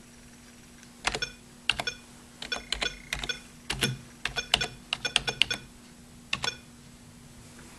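An eMachines PC keyboard typed on with one finger, key by key: a run of irregular key clicks starting about a second in and stopping a little after six seconds in.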